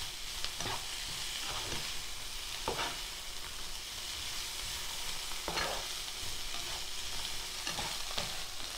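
Green beans, carrots and tomato sizzling as they are stir-fried in a nonstick frying pan, with the scrape and knock of a slotted spatula turning them every second or so.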